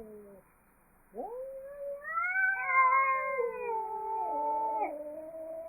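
Angry cats caterwauling: long, wavering, drawn-out yowls. After a brief pause, a rising yowl starts about a second in and swells into two overlapping yowls at different pitches, then another yowl follows near the end.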